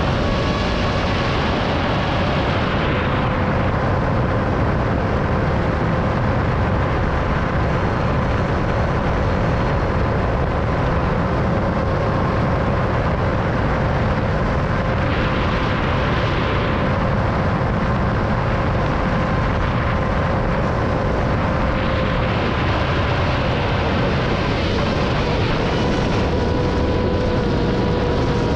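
Onboard sound of a 7-inch FPV quadcopter in flight: the steady whine of its brushless motors and three-blade props over heavy wind rush on the action camera's microphone. The whine's pitch shifts slightly up and down a few times.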